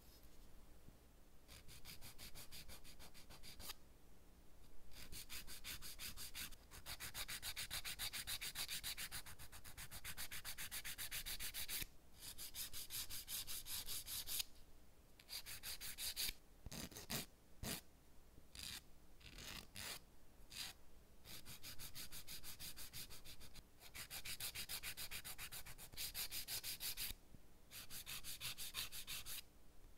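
A nail file rubbed rapidly back and forth over a nail, in runs of a few seconds with short pauses between them.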